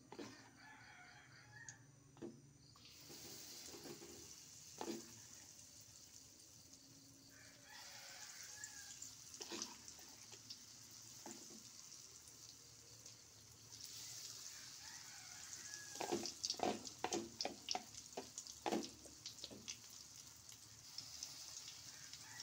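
Batter fritters frying in hot oil in a wok: a steady sizzling hiss that grows about three seconds in as the frying gets going. Around two-thirds of the way through, a quick run of sharp metal clicks and taps from a spoon against the wok.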